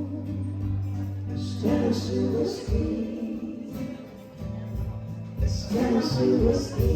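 Background music with held low notes, swelling into two louder, busier passages a few seconds apart.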